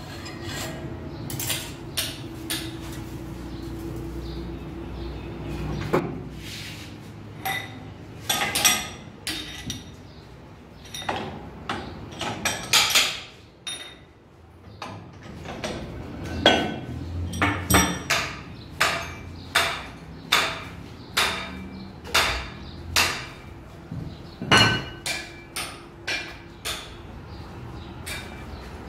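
Repeated sharp metal-on-metal knocks and clinks as a clutch pressure plate is set and trued in a lathe's four-jaw chuck and the jaws are tightened. The knocks are few at first and come steadily, more than once a second, through the second half.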